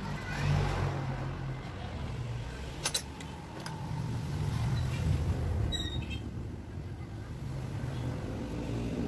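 A motor vehicle engine running: a low rumble that swells and fades over a few seconds. A sharp click comes about three seconds in.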